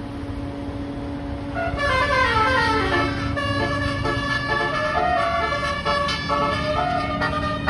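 Telolet basuri multi-note bus air horn over a running bus engine. A steady low tone is followed, about two seconds in, by a quick tune of stepped notes that runs on to the end.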